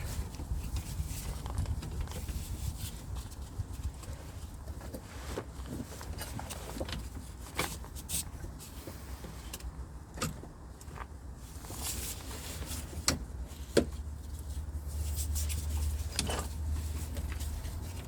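Scattered clicks and knocks of hand tools and metal parts being handled while a steering rack and its pipe are refitted, over a steady low hum that grows louder near the end.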